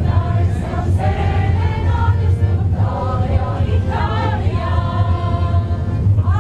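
A group of people singing together, with a steady low hum underneath.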